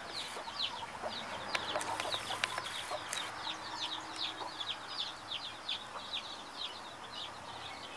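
Jungle fowl chicks peeping steadily, a busy run of short, high, falling chirps several times a second, with a few soft low clucks from the mother hen.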